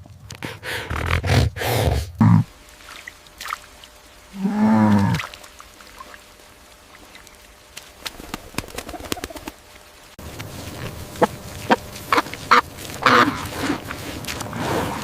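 Farm birds calling: one arched, drawn-out call about four and a half seconds in, then short clicks and brief calls after an abrupt change of background near ten seconds.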